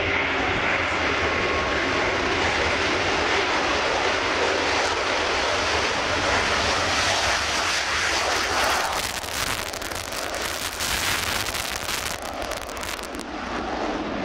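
Eurofighter Typhoon jet fighter, with its twin Eurojet EJ200 turbofans, taking off at full power: a loud, steady jet roar. About nine seconds in, as the jet lifts off and climbs away, the sound turns rougher and slightly fainter.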